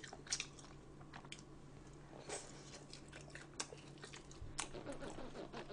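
Faint close-miked chewing with scattered small mouth clicks and smacks.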